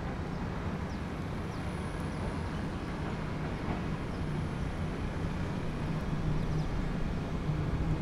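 Arc Aileron v2 electric skateboard's Fusion hub drive pulling away from a standing start: a faint, steady low hum with no loud motor whine, under outdoor background noise.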